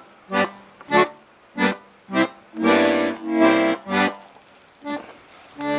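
Accordion playing a string of short, separate notes about every half second, then two longer, fuller chords a little past the middle, then a few more short notes.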